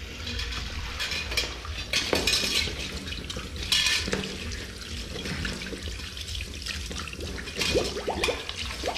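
Washbasin tap running onto rubber-gloved hands and splashing into the basin, with a few sharp clinks and scrapes of metal at the drain as a wire hook is worked in it.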